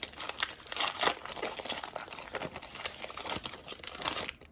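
Plastic wrapper of a basketball trading-card pack crinkling and rustling as it is handled and torn open, a dense run of small crackles that stops just before the end.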